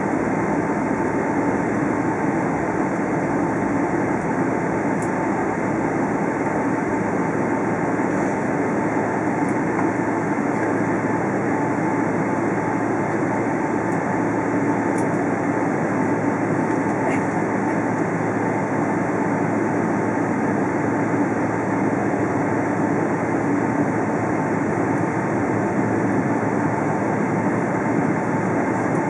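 Steady cabin noise inside a Boeing 777-300ER taxiing: the drone of its GE90 engines at taxi power and the rumble of the rolling airliner, with a faint steady whine.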